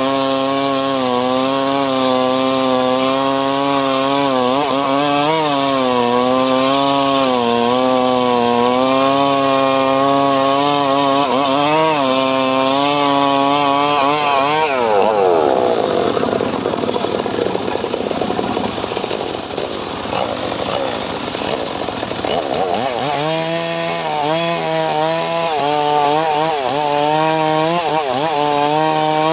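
A homemade srekel sawmill saw running steadily at speed, then cutting through mahogany from about halfway in: its pitch sags and the sound turns rough under the load for several seconds before it runs free again.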